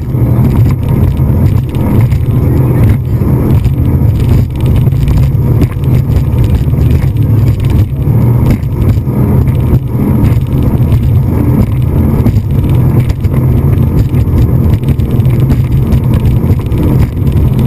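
Speedboat under way at speed: a steady, loud engine drone, with wind noise on the microphone.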